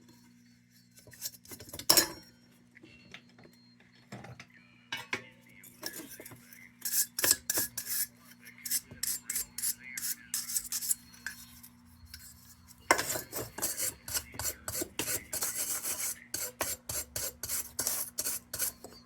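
Metal kerosene heater parts being handled and worked over, with a few clinks, then runs of quick, rapid rubbing or scraping strokes that start about six seconds in and pick up again just before the last third.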